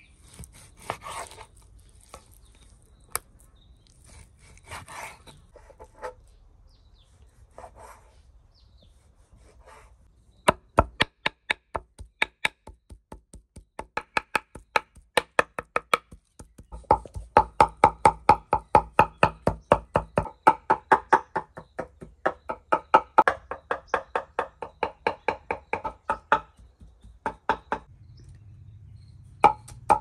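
Large kitchen knife mincing raw beef on a wooden cutting board. The first ten seconds hold quieter slicing and scraping, then rapid, even chopping strikes at about four a second, with a short pause near the end.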